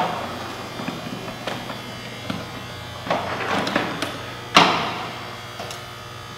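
TOS W-100 horizontal boring mill running with a steady electric hum while its controls are worked. Sharp metallic clunks ring out at the start and again about four and a half seconds in, with a rattling stretch just after three seconds.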